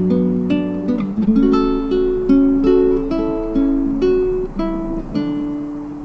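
Background music: an acoustic guitar picking single plucked notes, growing quieter near the end.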